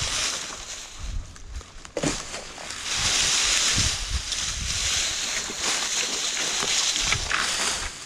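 Cut branches being dragged through dry leaf litter and brush: a rustling, scraping swish with twigs cracking, heaviest from about three seconds in until just before the end.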